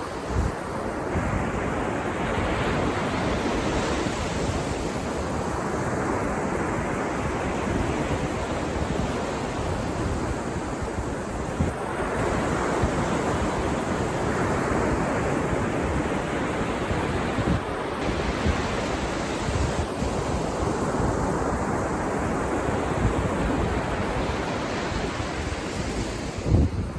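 Ocean surf breaking on a beach, a continuous wash that swells and eases every few seconds as waves come in, with wind rumbling on the microphone.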